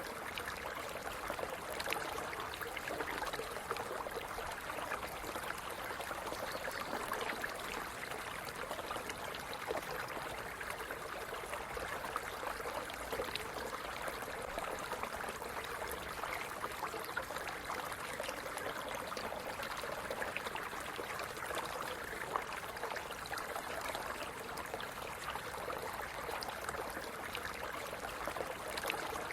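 Stream running steadily, the water trickling and gurgling over stones in a constant, even rush.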